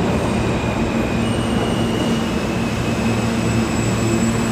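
New York City subway train running, a steady loud rumble with faint steady motor tones over it.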